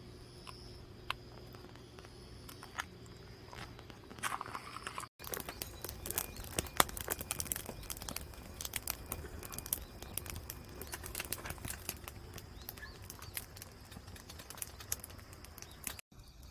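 Split firewood burning, crackling with many sharp pops and snaps. The crackle is sparse for the first few seconds. After a brief dropout about five seconds in, it becomes dense and busy.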